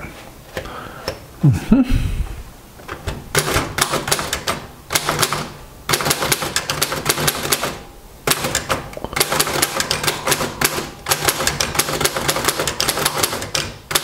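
1938 Royal DeLuxe manual portable typewriter being typed on: fast runs of sharp clacks as the typebars strike the platen, with short pauses. Near the start the carriage is returned and line-spaced for a double-spaced line.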